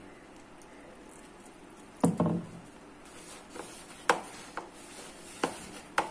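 A hand kneading maida flour and water into dough in a plastic bowl on a hard floor, with a few scattered knocks as the bowl is pressed and shifted. The loudest knocks come about two seconds in.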